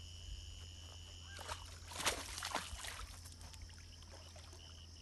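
Light splashing and dribbling of water as hands work in the shallows, with a few small splashes about two seconds in. A faint steady high-pitched tone runs behind it, breaks off partway and comes back near the end.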